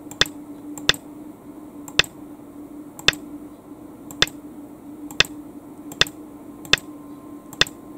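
Nine sharp single clicks, about one a second at uneven spacing, as moves are stepped through on an on-screen Go board, over a faint steady hum.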